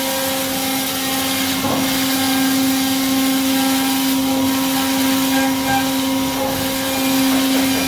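CNC milling machine running a 4th-axis machining job: a steady, even spindle whine over a constant hiss.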